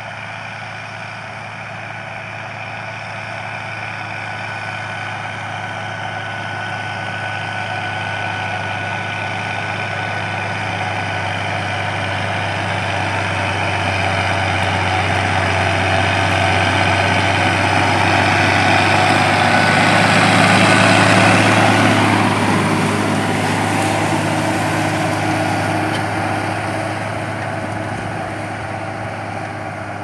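John Deere 6620 tractor's six-cylinder diesel engine running steadily under load while pulling a three-furrow plough. It grows louder as the tractor comes closer, is loudest as it passes about two-thirds of the way in, then fades as it moves away.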